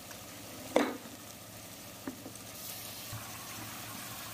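Onion and tomato masala sizzling in hot oil in a pressure cooker. A sharp knock comes about a second in and a lighter click about two seconds in, and the sizzle grows a little louder past the halfway point.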